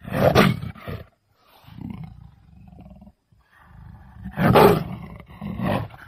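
Leopard calling: a series of four roaring calls, the loudest about four and a half seconds in.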